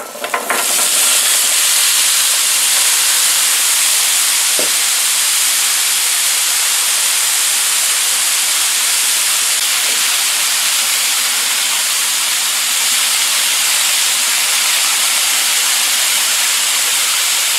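Diced red potatoes and onions sizzling on the hot surface of a Blackstone E-Series 22-inch electric griddle set to 450. The sizzle starts about half a second in as the pieces land, then holds loud and steady.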